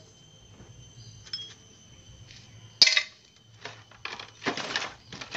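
Metal tools and engine parts clinking against each other: one sharp, ringing clink about three seconds in, then a few lighter knocks and a short scrape near the end as the motorcycle engine is handled.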